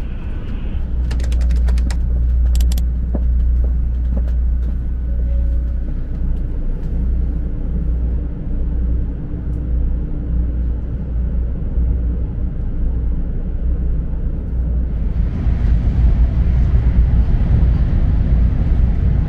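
Cabin noise of the 500 Series Hello Kitty Shinkansen running: a steady low rumble, with a run of sharp clicks a second or two in. Near the end a louder rushing hiss joins the rumble, with the train at about 209 km/h.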